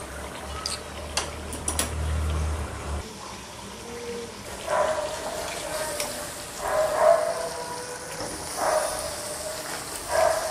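Whole marinated chicken frying in oil in a metal wok on a high flame, sizzling, with a metal spatula clicking and scraping against the pan in the first couple of seconds. In the second half, short mid-pitched sounds recur about every two seconds.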